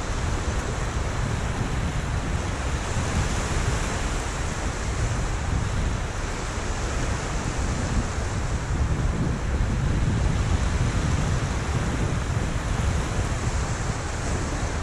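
Small waves washing in over a shallow sandy beach, with wind buffeting the microphone as a steady low rumble.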